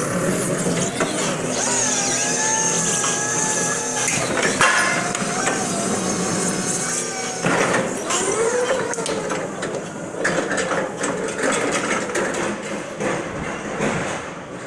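Crown stand-up reach truck working: its electric drive and hydraulic mast give a whine that wavers in pitch over a steady hum, changing suddenly about halfway through as it moves and handles a pallet at height.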